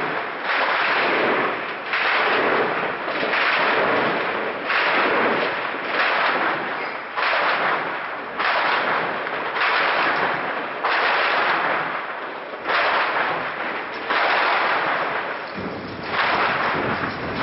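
Gunfire in armed clashes: single loud shots about every second and a half, each trailing off in a long echo.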